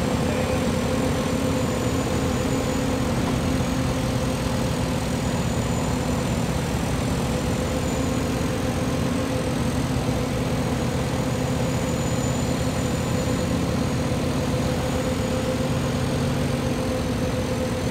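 Heavy diesel engine of a Bomag road milling machine (cold planer) running steadily, an even deep drone with a constant hum.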